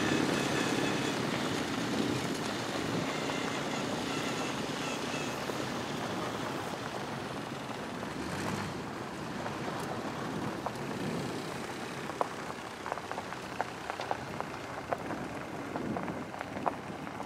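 A vehicle running as it moves slowly over rough grassland, heard as a steady rushing noise. In the second half come a scatter of sharp clicks and knocks.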